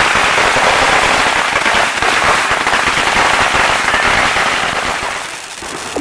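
Firecrackers going off in a rapid, continuous crackle of sharp pops, easing off about five seconds in.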